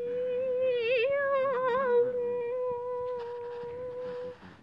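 A person humming one long held note that wobbles in pitch in its first half, then holds steady and stops near the end.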